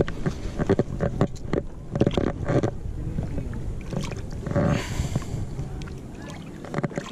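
Shallow lake water splashing and sloshing around hands as a common carp is lowered into it and released, with a run of short splashes in the first three seconds and another about four to five seconds in.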